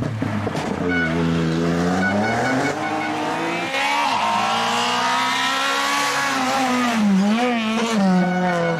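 Citroën C2 rally car's engine at full throttle, coming up the stage and passing close by. Its pitch climbs over several seconds as it closes in, then dips and rises quickly a few times near the end as it shifts and brakes for the corner.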